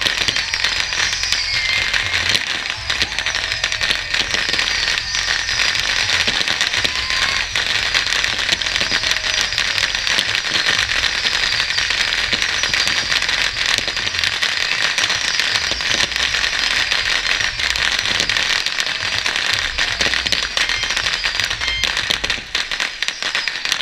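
Fireworks going off from a tower in a dense, continuous crackle of small bangs, with a few whistles falling in pitch among them. The crackle thins slightly near the end.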